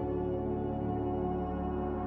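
Background ambient music of sustained, ringing bell-like tones over a low drone that comes in at the start.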